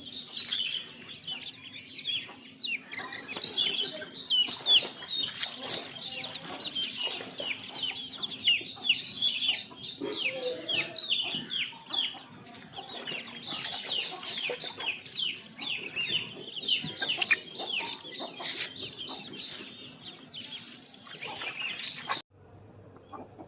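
A flock of Indian country (nati) chickens calling, a dense run of many high, quick, falling peeps over one another. It cuts off abruptly near the end.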